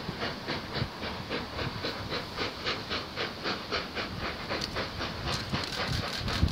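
Steam locomotive approaching under steam, its exhaust beating in a rapid, even rhythm of about five chuffs a second, with a low thump near the end.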